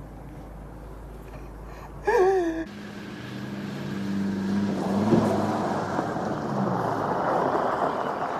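A brief voiced cry or gasp about two seconds in, then a car engine coming closer and passing, loudest around the middle and easing off near the end.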